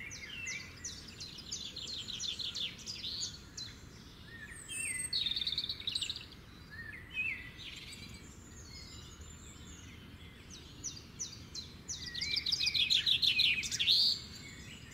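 Songbirds chirping and singing, with rapid trills and short rising whistles over a faint steady hiss; the singing grows busiest and loudest near the end.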